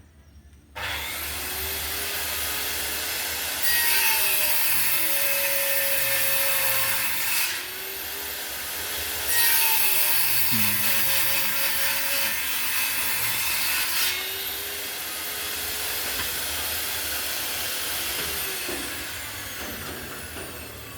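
Electric hand planer started about a second in and running, with two louder stretches as the blades cut into wood, then fading near the end.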